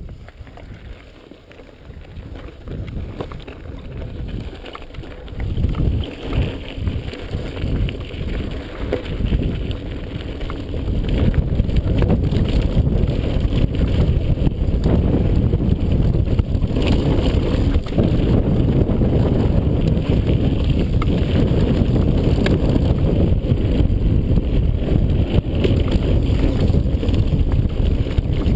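Mountain bike descending a rocky gravel trail: wind rushing over the microphone, with tyres on loose stones and the bike rattling. Quieter in the first couple of seconds, it builds as speed picks up and is loud and steady from about eleven seconds in.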